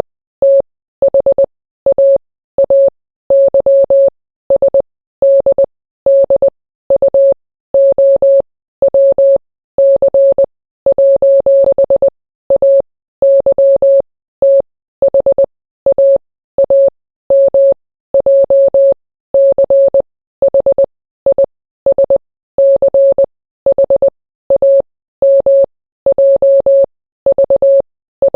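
Morse code practice tone: a single steady beep keyed on and off in short dots and longer dashes, sent in groups of characters with short pauses between them.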